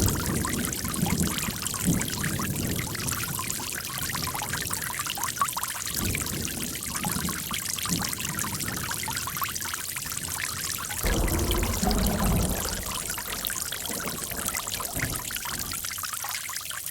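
Running water pouring and trickling, with uneven gurgling surges; it swells louder in the low end about two-thirds of the way through, then eases.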